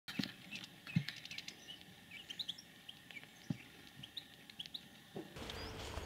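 Small finches chirping and twittering at a hanging seed feeder: many short, high calls, scattered and overlapping, with a few soft thumps. Near the end the background changes to a steadier outdoor hiss.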